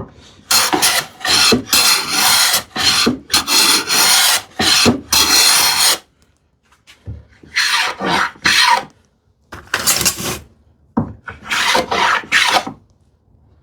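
Hand plane shaving the edge of a plywood panel in quick repeated strokes: a steady run of strokes for about five seconds, a short pause, then a few shorter groups of strokes, taking the oversized piece down to fit its opening.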